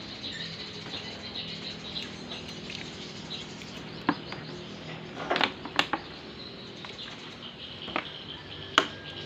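Sharp metallic clinks and knocks of hand tools and parts as a ketingting engine is reassembled, about five of them in the second half, the last the loudest. Behind them, small birds chirp steadily.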